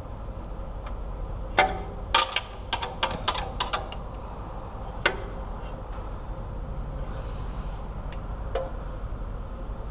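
Hand tool tightening the new starter's mounting bolts on a Jeep 4.7 V8, a quick run of sharp metallic clicks followed by two single clicks, over a steady low hum. The bolts are being checked for tightness by hand.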